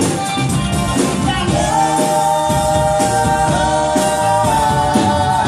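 Live rock band: male lead vocal through a PA holding one long note from about a second and a half in until the end, over a steady drum-kit beat.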